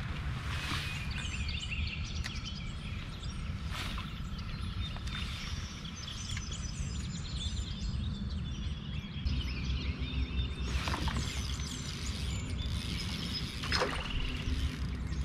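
Songbirds singing from the riverbank, many short chirps and trills overlapping, over a steady low rumble. A few sharp knocks stand out, loudest about eleven and fourteen seconds in.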